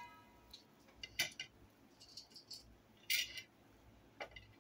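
Faint, scattered clicks and rattles of kitchen utensils being handled beside a frying pan, with one louder rattle about three seconds in.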